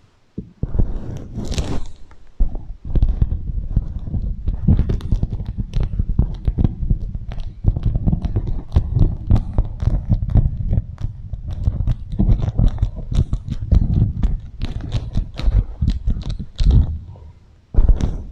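Beeswax food wrap crinkled and rubbed close against a microphone, giving dense crackling over a heavy low rumble, run through an echo effect to imitate rain.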